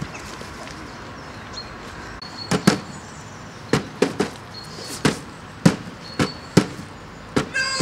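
A broken lawnmower being kicked repeatedly: about ten sharp knocks, several in quick pairs, starting a couple of seconds in.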